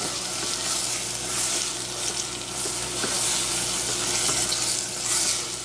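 Spinach sautéing in a stainless steel saucepan, sizzling steadily while a wooden spatula stirs and turns the leaves, the sizzle swelling with each stir.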